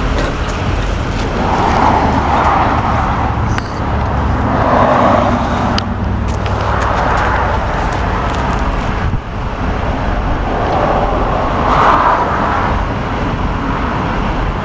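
Pickup truck engine idling steadily, with a soft rushing noise that swells and fades a few times.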